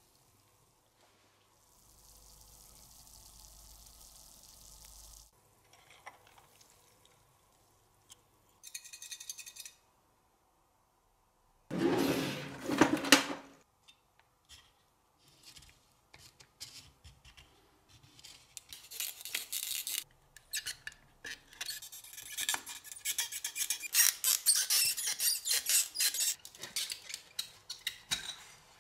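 Metal-on-metal scraping and tapping on the tinplate hull of a toy pop-pop steam boat while its boiler tubes are soldered. There is a loud rasping burst about twelve seconds in, then a dense run of short scratches and clicks through the second half.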